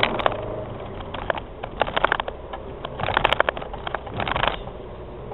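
Car running, heard from inside the cabin through a dash cam: a steady low engine and road hum, broken by several short bursts of crackling and rattling about half a second, two, three and four seconds in.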